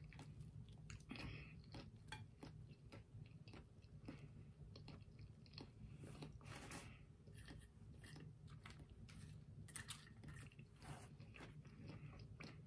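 Faint close-up chewing of a toasted bacon and lettuce sandwich, with many small, quick mouth clicks.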